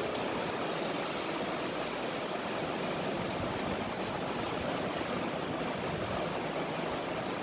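Steady rushing background noise, with a few faint taps of chalk on a blackboard.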